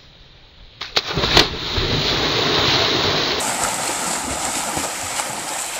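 A person jumping into a pond: a sharp splash about a second in, then a few seconds of loud churning and splashing water as he thrashes about, easing off after the first three seconds.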